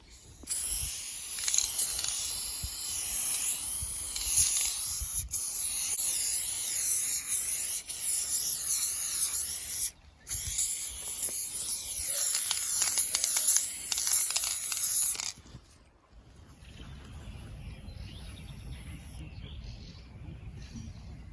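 Loud steady hiss that breaks off briefly about ten seconds in and stops about fifteen seconds in, followed by a faint low rumble.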